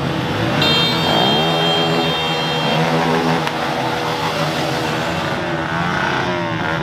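Several small pit-bike engines running together on a start line, their pitch rising and falling as riders blip the throttles.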